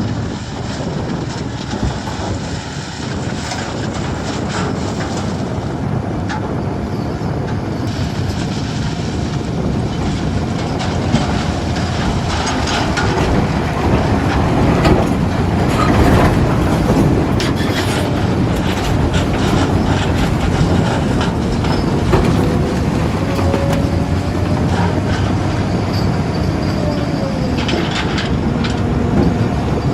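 Diesel engine of a JCB 3DX backhoe loader working under load, with repeated clanks and rattles from the bucket and arm as it digs and dumps mud. A faint whine wavers up and down in the second half.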